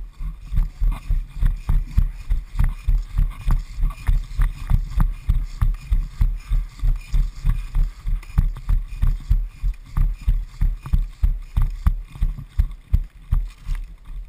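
Running footsteps on dry sandy ground, heavy thuds about three a second that jolt a body-worn camera, stopping just before the end.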